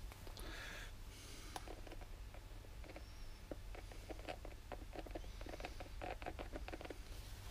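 Faint light clicks and taps of hand work on a differential carrier, as Loctite-coated steel bolts are set into it by hand, with a run of quick small ticks in the second half.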